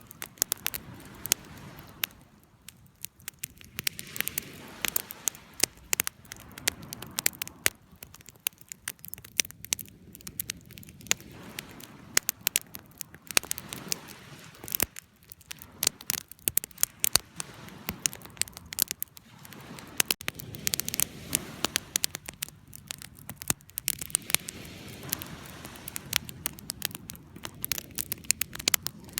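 Campfire burning, with many sharp, irregular crackles and pops over a soft, shifting rush of flame.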